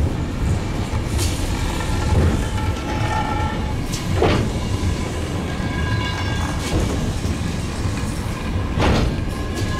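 Eizan Cable Line funicular car running along its track: a steady low rumble with occasional sharp clacks every second or two.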